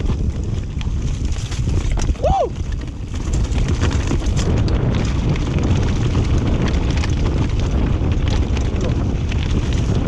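Mountain bike riding fast down a leaf-strewn dirt trail: wind rushing on the microphone, tyres rolling over leaves, dirt and roots, and the bike rattling and knocking over bumps. A brief squeak comes about two seconds in.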